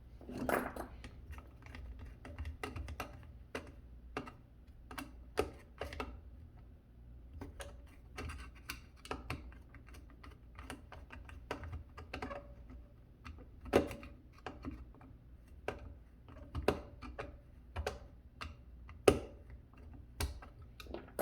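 Irregular small clicks and knocks of a screwdriver tightening the Romex cable connector screws on a garbage disposal's power-cord connection, metal tool on metal, with a couple of sharper knocks later on.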